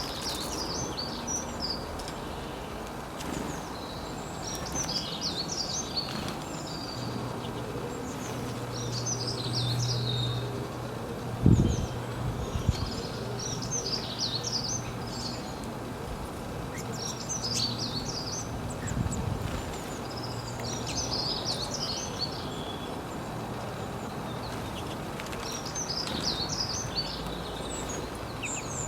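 A songbird singing the same short, high twittering phrase over and over, about every two to three seconds, over steady outdoor background noise. A low hum runs through the middle, and a single thump comes about eleven seconds in.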